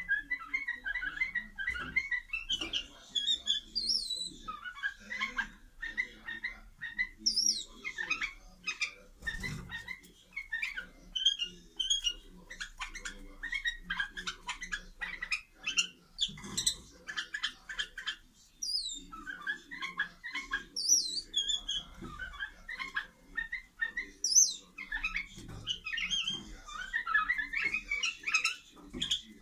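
White-eared bulbuls calling in a rapid run of short chirps and quick whistled notes, with brief pauses, as part of their pre-breeding courtship display.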